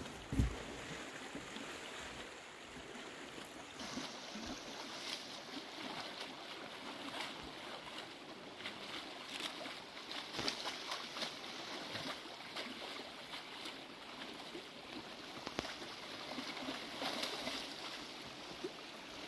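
Creek water running steadily and faintly, with scattered light clicks throughout.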